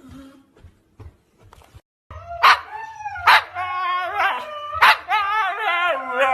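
A dog barking a few times in short barks, with a wavering, whining howl in between. It starts about two seconds in, after a few faint knocks.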